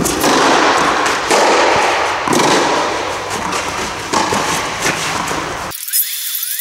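Tennis balls struck by rackets on a clay court: a serve, then sharp racket hits about a second apart in the rally, each followed by a short echo, over a steady rushing noise.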